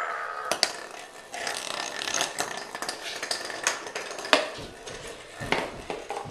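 Puppies scrabbling and skittering on a tile floor while a hard plastic babble ball knocks and rolls across the tiles: an irregular string of sharp clicks and clatters, the loudest knock about four seconds in.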